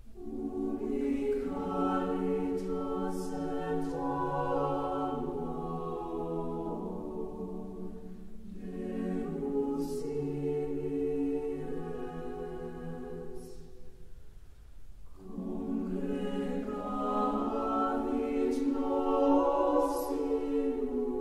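Background music: a choir singing slow, held phrases, with short breaks between phrases about eight and fifteen seconds in.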